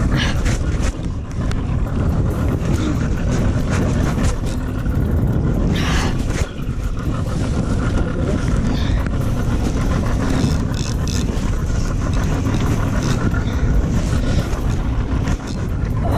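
Steady low rumble of wind on the microphone aboard a small boat, with a few faint knocks scattered through it.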